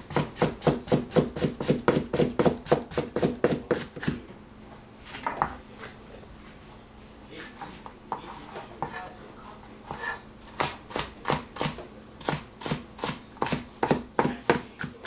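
Cleaver chopping bell pepper on a plastic cutting board: a quick run of chops, about five a second, then a pause of several seconds with a few softer knocks, then another run of chops near the end.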